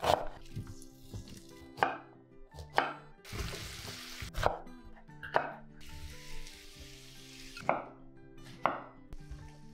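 Kitchen knife chopping vegetables on a wooden cutting board, single sharp knocks about once a second, with two stretches of oil sizzling in a frying pan in the middle. Soft background music runs underneath.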